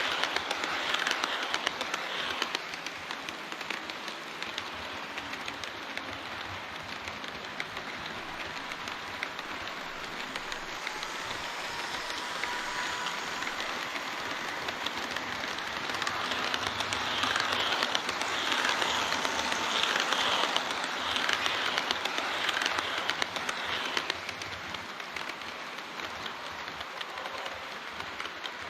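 HO-scale model trains running on layout track, their metal wheels clicking over the rail joints in a dense, steady clatter. It grows louder for several seconds about two-thirds of the way through, as a train runs close by.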